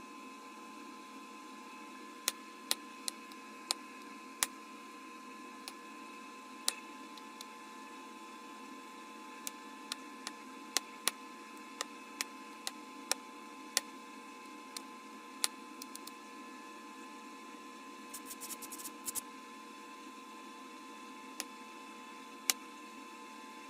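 Sharp, separate clicks of flakes snapping off Bud Light Platinum bottle glass as it is knapped, coming at uneven gaps with a quick run of clicks about three-quarters of the way through. Under them runs a steady faint hiss with a high hum.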